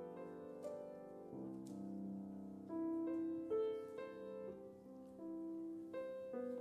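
Slow, soft keyboard music: held chords that change every second or so, a quiet hymn-like interlude.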